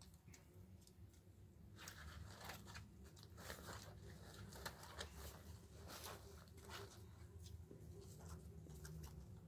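Faint, irregular crunching and crackling that starts about two seconds in and runs as many quick, uneven snaps, over a low steady hum.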